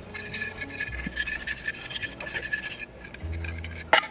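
Rapid back-and-forth scraping of a hand tool against the rusted iron of an antique hammer-wrench as the rust is worked off by hand. Near the end comes one sharp metallic clank.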